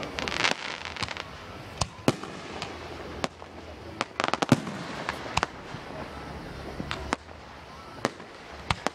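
Aerial fireworks shells bursting overhead: a string of sharp bangs, with quick clusters of pops near the start and about four seconds in.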